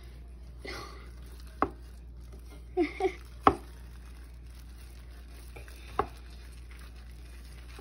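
A hand pressing and patting raw ground beef flat in a glass bowl: soft squishing and rustling with three sharp taps against the glass, over a steady low hum.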